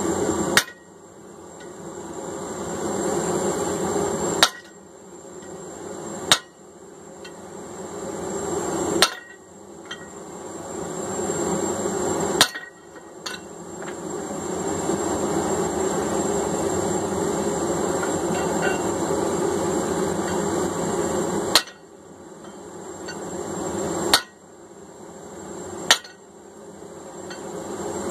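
Hammer blows on hot tool steel at the anvil while forging a hammer eye punch: about nine sharp, ringing strikes, spaced a few seconds apart with a long pause in the middle, over a steady rushing noise.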